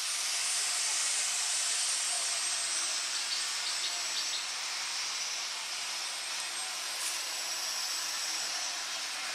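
Steady high hiss of outdoor background noise, with a thin high-pitched whine held throughout and a few faint short chirps a few seconds in.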